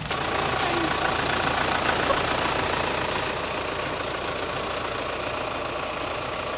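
A vehicle engine running steadily. It comes in suddenly at the start and slowly eases off.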